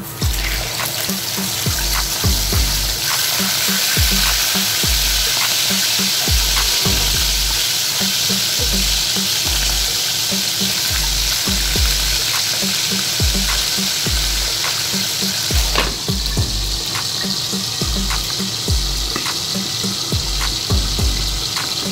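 Marinated milkfish (daing na bangus) laid into hot oil in a frying pan, setting off a loud sizzle that starts suddenly and goes on steadily. About sixteen seconds in there is a click as a glass lid goes on the pan, and the sizzle turns duller after it.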